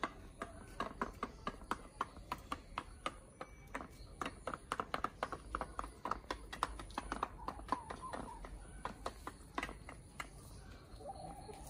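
Hens pecking at a feeder dish, their beaks tapping against it in quick, irregular clicks several times a second, with a short cluck near the end.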